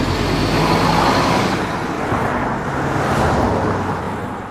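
Steady, loud road-vehicle noise: a low rumble with hiss, easing slightly near the end.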